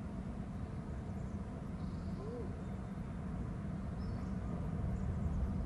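Steady low outdoor rumble, with a couple of faint, brief high chirps about two and four seconds in.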